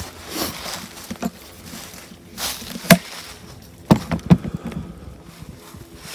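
Footsteps shuffling and rustling through dry fallen leaves and brush on a forest floor, with a few sharp snaps: the loudest about three seconds in and two more about a second later.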